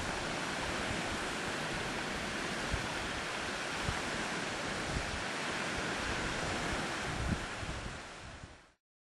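Steady rush of sea waves and wind, with wind buffeting the microphone in scattered low thumps. It fades out quickly near the end.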